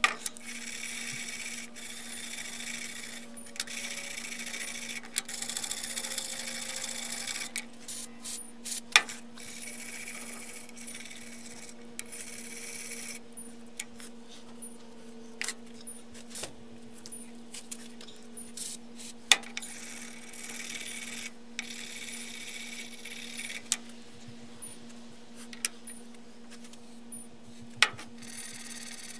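Scraping and rubbing on the metal of a Leatherman multi-tool being cleaned of grime, in stretches, with sharp clicks of its small metal parts every few seconds.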